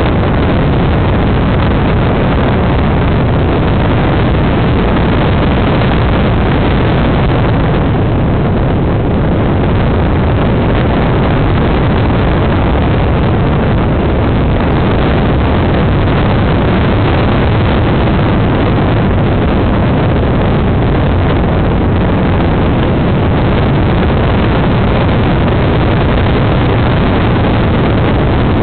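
Aircraft engine running at a steady, constant drone during flight, with wind rushing over the microphone.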